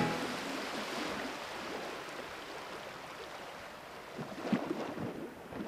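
Moving water: a faint steady wash, with a few small splashes or laps near the end.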